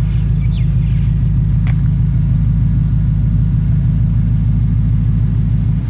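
Tuned Ford Mustang GT's 5.0-litre V8 idling steadily just after start-up, heard at the tail pipes of its full 3-inch stainless steel exhaust with extractors: a deep, even idle.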